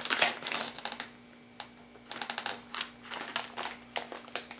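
Plastic soft-bait packaging crinkling and clicking as it is handled. A burst comes at the start, then a pause, then a quick run of clicks over the last two and a half seconds.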